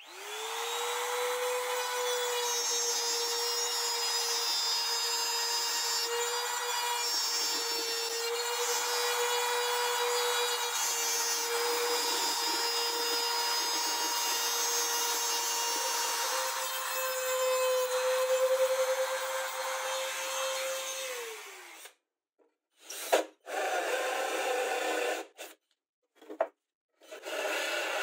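Compact trim router spinning up and routing a shallow square recess in laminated chipboard: a steady high motor whine with cutting noise, winding down about three-quarters of the way through. After it come a few short, chopped bursts of tool noise.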